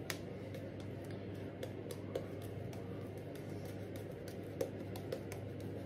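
Zenith silvertip badger shaving brush working shaving-soap lather over a bearded face: a faint wet squishing with many small, irregular clicks and crackles.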